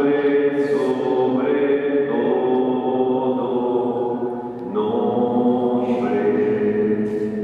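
Choir singing a slow Spanish Catholic hymn of praise in long, held phrases, with a short break between phrases about five seconds in.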